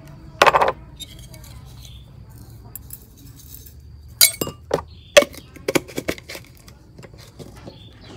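Metal spoon clinking against a ceramic bowl while stirring sugar, chopped garlic and chili. There is a short loud clatter just after the start, then a quick run of sharp clinks from about four to six and a half seconds in.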